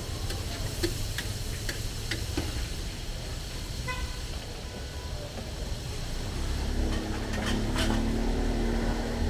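Street traffic rumbling steadily, with a short vehicle horn toot about four seconds in. A few sharp metallic clinks sound in the first couple of seconds, and the traffic grows louder near the end.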